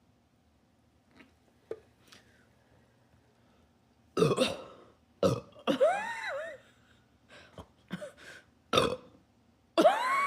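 A person burping loudly several times, starting about four seconds in. The burps break into laughter, with the pitch wobbling up and down mid-burp.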